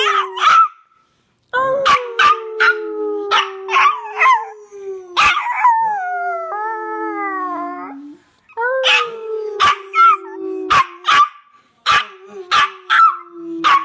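Chihuahua howling: long wails that start higher and slide slowly down in pitch, one ending about a second in, then two long ones, with short sharp yips breaking through them.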